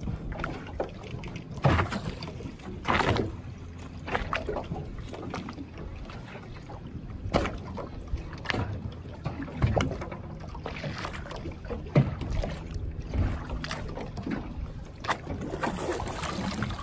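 Lake water lapping and sloshing right at the microphone, with irregular splashes as people wade through it.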